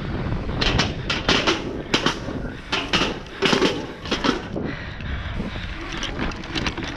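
Mountain bike rolling fast over paving slabs, heard from a camera on the rider: a steady tyre-and-wind rumble, with a run of sharp, irregular rattling clacks from the bike over bumps and joints for a few seconds in the middle.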